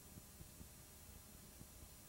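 Near silence: a faint steady hiss with scattered soft low pops.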